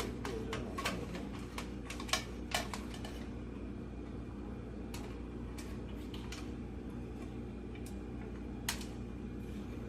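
Small sharp clicks and taps of hands handling parts inside a desktop computer case, most of them bunched in the first few seconds with a few single ones later, over a steady low hum.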